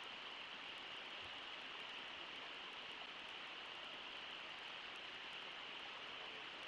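Faint, steady rushing of water from the river and falls, with no break or change.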